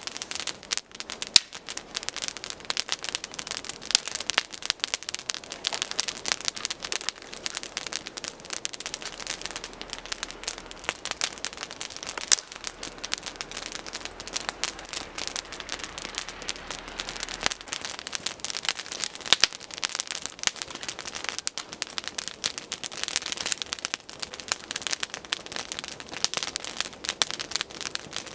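Dry twigs and brushwood crackling and snapping, a dense run of sharp pops and clicks that goes on without a break.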